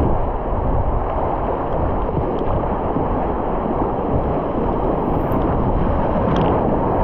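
River rapids rushing steadily around a kayak, with waves splashing over the bow and against the camera about six seconds in.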